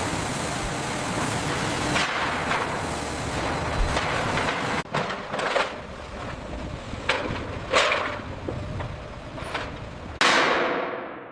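Metalworking noise: a dense hiss with sharp metallic strikes standing out every second or so.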